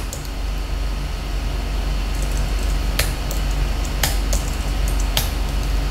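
Steady low hum under a few sharp computer-keyboard key clicks, three distinct ones about a second apart in the second half.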